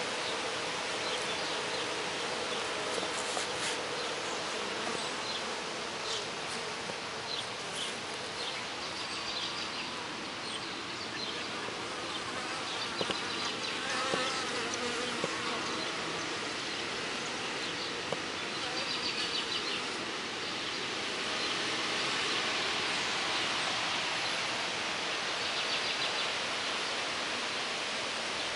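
Honey bees buzzing around a hive and water feeder: a steady hum of many wings.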